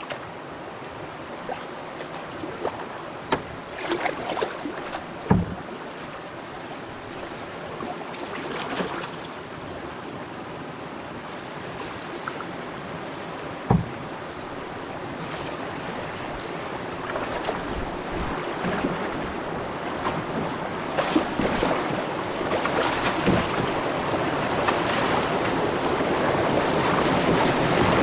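River water rushing past a canoe, growing steadily louder as it runs into whitewater rapids. A few sharp knocks of the paddle against the canoe's hull stand out.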